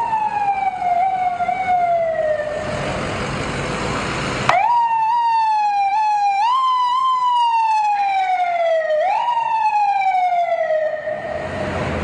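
Ambulance siren wailing, each tone rising quickly and then falling slowly. It fades out, then starts again abruptly about four and a half seconds in and fades near the end.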